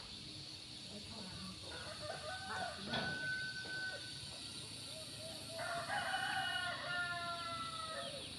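A rooster crowing: one long crow of about two and a half seconds in the second half, with fainter, shorter calls a few seconds before it.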